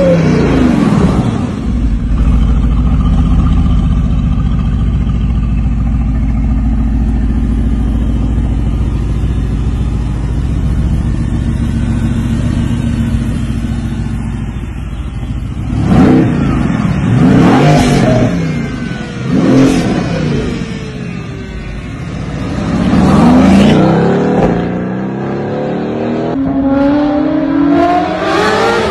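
Mercedes-AMG GT C's twin-turbo V8 accelerating past at the start, then idling steadily for about twelve seconds, then revved sharply several times in quick blips with the pitch rising and falling. Near the end an engine accelerates again, its pitch rising.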